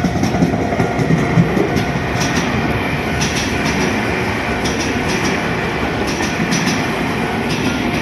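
Tobu Tojo Line electric commuter train passing close by at a level crossing: a steady rumble of wheels on rail, with its wheels clicking over rail joints several times.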